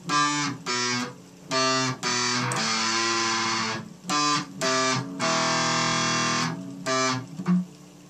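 Electric guitar played through distortion: a run of short, choppy notes and two longer held notes, with brief gaps between them.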